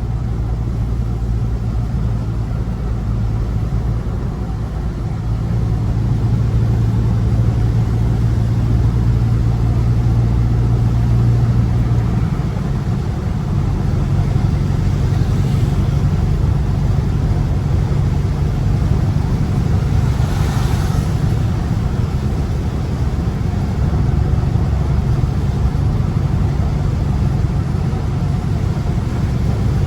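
Dodge Scat Pack's 6.4-litre HEMI V8 running at a steady highway cruise, a low drone that shifts to a different pitch about twelve seconds in, over steady road and tyre noise.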